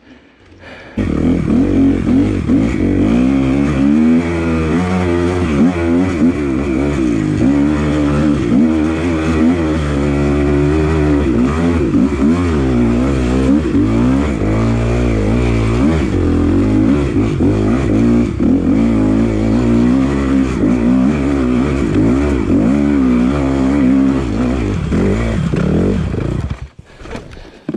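Enduro dirt bike engine under hard load on a steep uphill trail, its revs rising and falling constantly. The engine note cuts off abruptly near the end.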